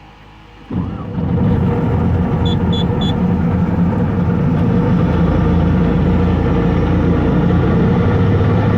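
Bobcat skid steer's diesel engine starting under a second in, catching abruptly and then running steadily. Three short high beeps sound a couple of seconds in.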